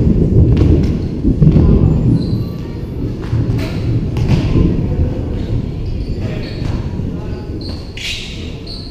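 Pickup basketball game on a concrete court: the ball bouncing and thudding now and then, and players calling out, over a heavy low rumble that is loudest in the first two seconds.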